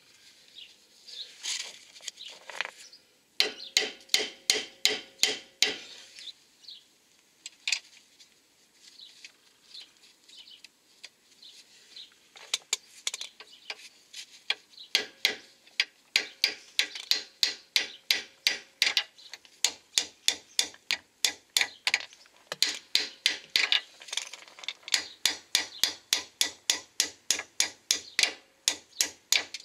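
A hammer striking the steel steering knuckle of a Peugeot 206 to seat the lower control arm's ball joint. It gives sharp metallic blows: a quick run of them a few seconds in, then a steady series of about two to three strikes a second through the second half.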